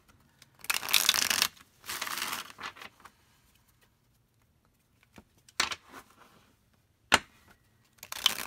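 A stiff, glossy tarot deck being shuffled by hand: two rustling shuffles in the first two and a half seconds, a quiet pause with a few light taps and one sharp click, then another shuffle starting near the end. The new cardstock is still slightly toothy and not yet broken in.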